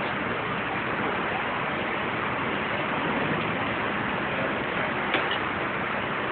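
Steady rushing noise of wind and the churning wake of a cruise ship under way, heard from its stern deck, with one short click about five seconds in.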